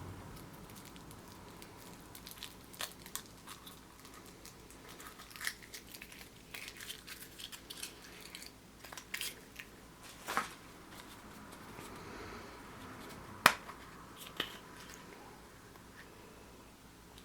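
Foil crinkling and crackling with scattered small clicks as a Kinder Surprise egg and its plastic toy capsule are handled, with one sharp click about thirteen seconds in.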